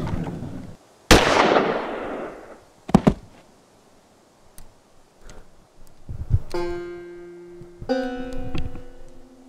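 A single revolver gunshot about a second in, loud and sudden with a long echoing tail, then two quick sharp knocks a couple of seconds later. From about six and a half seconds, sustained plucked-string notes of a western-style film score come in, with a second chord near the end.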